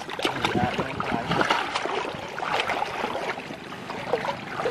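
Water splashing and sloshing, with many short irregular splashes.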